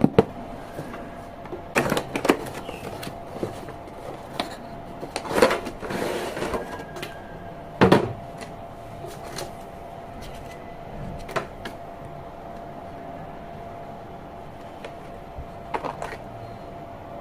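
A T-Dagger Capri keyboard being handled: irregular, scattered clicks and knocks rather than steady typing, with a short rustle about five and a half seconds in. A faint steady hum lies under it throughout.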